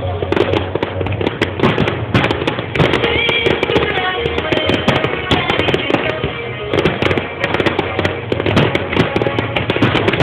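Fireworks display: aerial shells bursting and crackling in a rapid, irregular stream of bangs, with music playing underneath.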